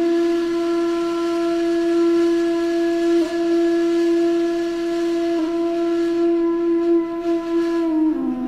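One long held musical note with a woodwind-like sound, steady in pitch, with two brief dips in the middle; it falls slightly and stops near the end.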